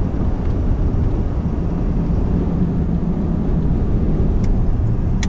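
Steady low rumble of a 2017 Ford F-250's 6.7 turbo diesel and its tyres on the road, heard from inside the cab while driving.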